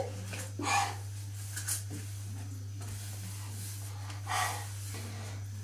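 A person breathing out sharply twice, a few seconds apart, over a steady low hum, his mouth burning from a spoonful of dry ground cinnamon.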